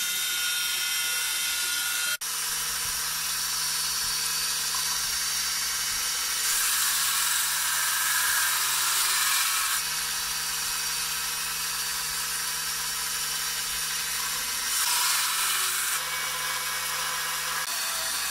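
Small bench belt sander running steadily. The hiss grows louder for a few seconds about a third of the way in, and briefly again later, as the steel socket of an old slick (a large timber chisel) is ground against the belt.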